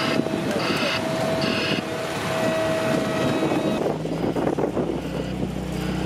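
Heavy diesel paving machinery running, with a reversing alarm sounding three beeps about 0.8 s apart in the first two seconds. About four seconds in, a deeper, steadier engine drone takes over.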